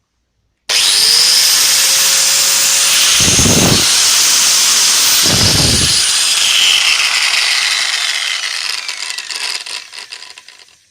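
Bosch PWS 650 angle grinder switched on, its motor whine climbing quickly to a steady high pitch. About five seconds in it is switched off and winds down with a falling whine as it coasts to a stop. Two brief low rumbles come midway.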